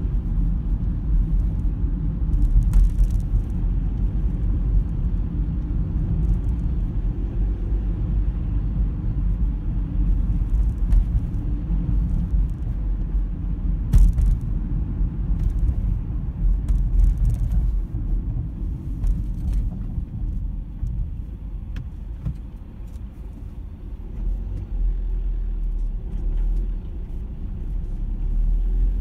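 Steady low rumble of road and engine noise inside a moving car's cabin, with a few faint clicks and one sharper knock about halfway through. The rumble eases off for a few seconds about three-quarters of the way through, then picks up again.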